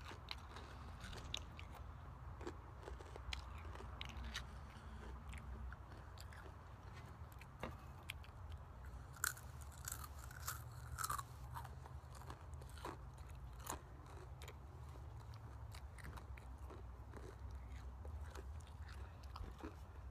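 Takis rolled tortilla chips being bitten and chewed: irregular crisp crunches, thickest in the middle, over a steady low rumble.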